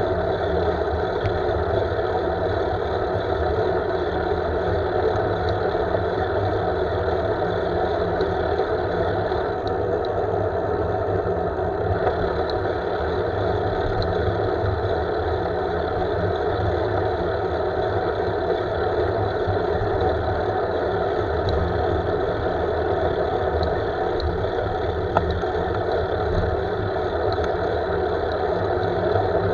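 Steady road noise from a bicycle in motion, picked up by a camera on its handlebars: tyre hum on asphalt and wind on the microphone, even throughout.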